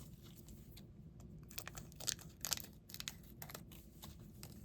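Faint, scattered crinkles and small clicks of small plastic and cardboard packaging being handled.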